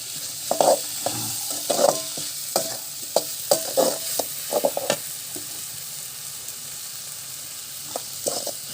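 Onion-tomato masala frying in oil in a pan with a steady sizzle, while a spoon scrapes and clinks against the pan as it is stirred. The stirring strokes are busy in the first half, pause for a few seconds, then start again near the end.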